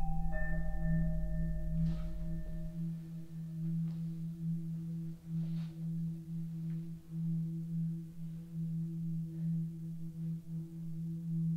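A low, steady hum whose level wavers slowly. A deeper rumble under it fades out a few seconds in, and a few faint ticks come and go.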